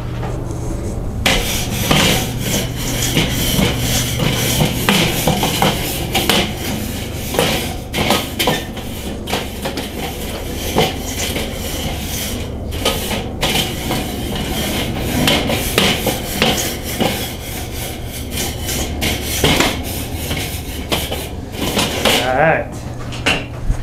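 Grill brush scrubbing the hot, oil-sprayed cooking grate of a Weber charcoal kettle: quick back-and-forth scraping strokes of bristles on the metal grate, starting about a second in. This is the grate being cleaned before food goes on. A steady low hum runs underneath.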